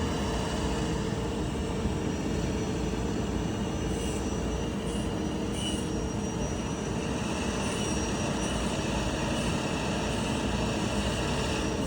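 Rice combine harvester running steadily while unloading grain into a truck: an even mechanical noise with a faint high whine over it.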